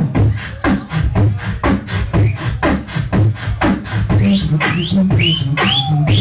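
Live beatboxing into a handheld microphone: a quick beat of mouth-made kick and snare strokes, about four a second, over a low hummed bass line. About four seconds in, high curving vocal glides that rise and fall join the beat.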